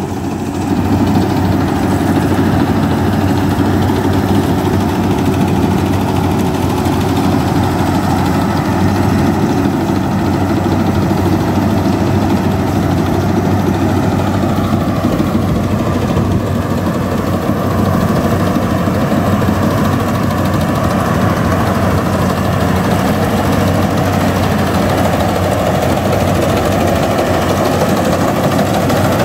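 Rice combine harvester running steadily while cutting paddy, its engine humming under the clatter of the working machinery.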